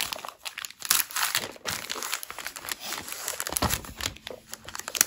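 Clear plastic packaging of a bead-embroidery kit crinkling and rustling as hands open the sleeve and slide the contents out, in irregular crackles.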